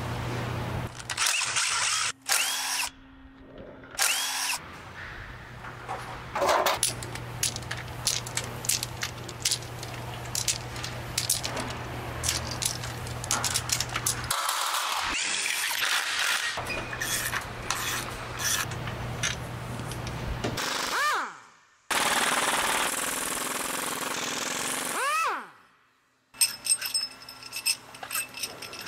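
Engine teardown sounds: a power tool running in several short spells, winding down with a falling whine, amid many metal clinks and knocks as valvetrain parts (rocker arms and lifters) are pulled from an aluminium cylinder head.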